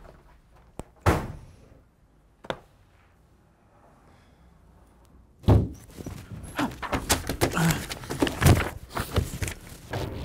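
Dull thumps and knocks: a single thud about a second in and a lighter one a second later, then a heavy thump about five and a half seconds in followed by a busy run of knocking and clatter.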